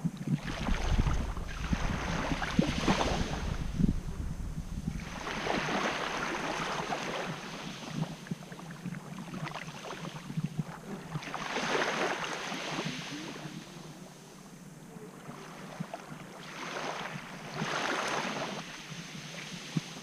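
Small sea waves washing up and draining back over a beach of coarse quartz grains, in about four swells and fades several seconds apart. A low rumble of wind on the microphone in the first couple of seconds.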